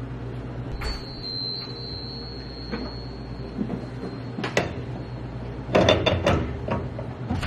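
Café counter work sounds: a few sharp knocks and clatters of equipment over a steady low machine hum. A thin high whine comes in about a second in and lasts about three seconds.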